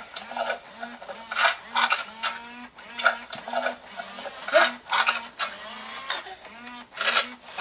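Large animatronic toy dinosaur being fed: its motor and chewing sound effects run in short repeated pulses, about two a second, with a low hum and a rasping noise in each.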